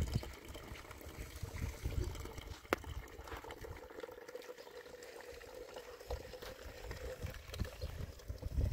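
Water running from a plastic tank's tap into a plastic jug, a steady trickle and pour. A single sharp knock comes about three seconds in, and low bumps sound near the start and the end.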